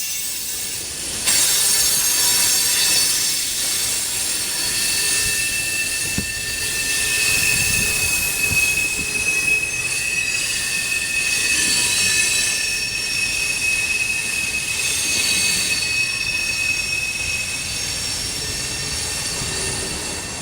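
Steel wheels of a Canadian National freight train squealing on the rails as the cars roll past: a loud, steady high-pitched screech with a weaker, lower second tone, over the rumble and clatter of the cars. It comes in abruptly about a second in.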